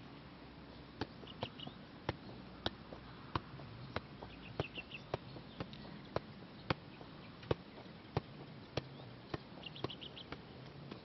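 Soccer ball being juggled: sharp taps of the ball off foot and knee, one every half second or so, starting about a second in. Faint high chirps come and go behind them.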